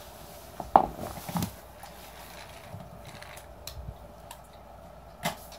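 A sharp knock about a second in, then a brief cluster of lighter knocks and scuffles, and one more click near the end: a small catnip ball being put down and pawed about on a wooden floor.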